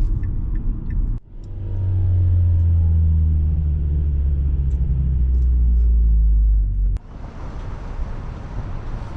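Ford Focus being driven: a loud, steady, low engine drone with road rumble. The sound changes abruptly twice, about a second in and about seven seconds in; after the second change, a hissier road noise replaces the engine note.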